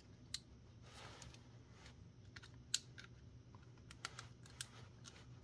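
Faint, scattered small clicks and taps of plastic camera parts and small tools being handled during disassembly, a few sharp ticks spread irregularly over a low steady background hum.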